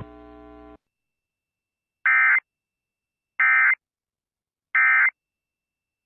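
Emergency Alert System end-of-message tones: three short, identical bursts of screechy digital data tones about a second and a half apart, which mark the end of the alert. A faint buzz cuts off just before them.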